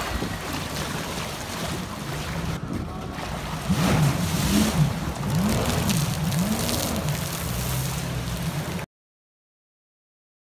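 Jet ski engine running with its pitch rising and falling as the throttle works, over water splashing and wind on the microphone; the sound cuts off suddenly near the end.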